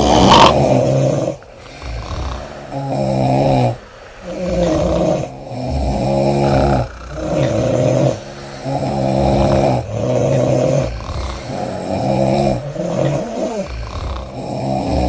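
Several women snoring loudly, open-mouthed, their rasping, pitched snores overlapping and following one another every second or so. It opens with one sharp, loud snore.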